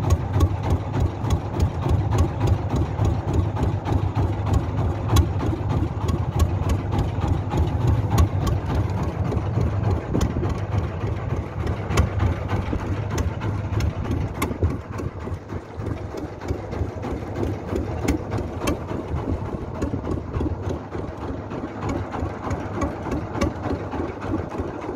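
An engine running steadily at low revs, with many small sharp ticks running through it; it drops a little in level about halfway through.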